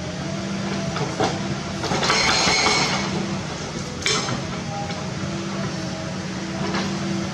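Excavator-mounted hydraulic hammer breaking rock over the steady running of the machine's diesel engine. About two seconds in there is a loud, roughly one-second burst of hammering and rock crunching, and sharp metallic knocks come about one second and four seconds in.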